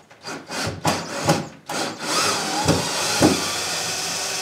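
Power drill backing a screw out of a wooden cabinet frame: a few short bursts, then about two seconds in it runs steadily.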